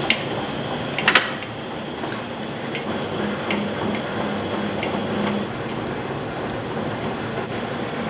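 Steady mechanical noise of running machinery, with a few sharp metallic clinks, the loudest a short cluster about a second in.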